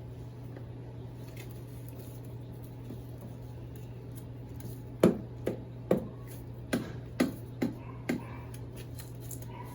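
A series of sharp knocks and thuds, about eight of them at uneven spacing from about halfway in, as soil in a plant pot is struck and jabbed during repotting.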